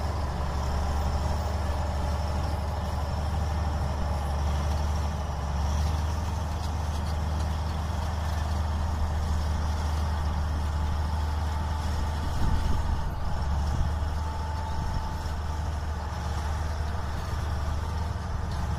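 Heavy machinery's engine running steadily with a low rumble, with a few louder bumps about two-thirds of the way through.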